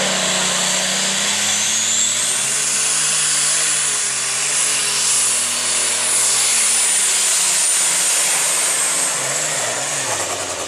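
Open Super Stock pulling tractor's engine running flat out under load as it drags a weight-transfer sled, with a high whine that rises about two seconds in, holds, and falls away near the end.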